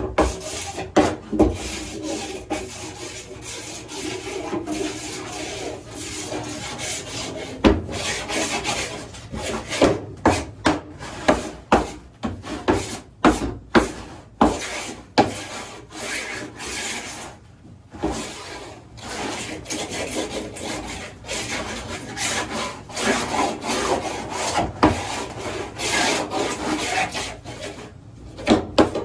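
Hand rasp scraping along a 1¼-inch PVC pipe in repeated, uneven strokes with short pauses, roughening the plastic's surface.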